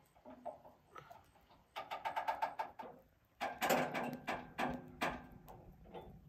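Hand-cranked support jack on a Wood-Mizer LT15GO sawmill bed being wound to level the mill, clicking quickly in two runs, about two seconds in and again just after.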